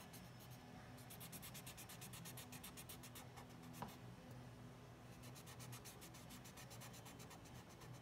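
Felt-tip marker scratching across cardboard in quick, short strokes, with a pause about halfway through. A faint steady hum runs underneath.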